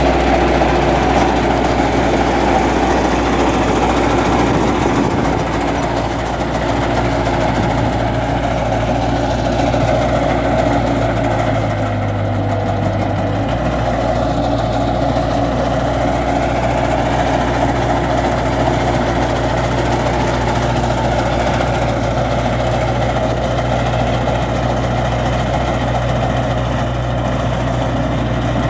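Skid steer loader's engine running steadily under a beach-cleaner attachment, with a brief dip in its low tone about twelve seconds in.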